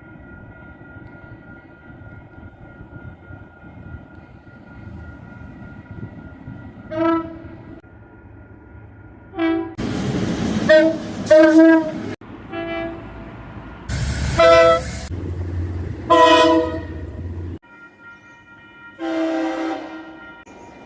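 Train horns sounding a string of short blasts, about eight in all. During two of them the rumble and rush of a passing train is heard.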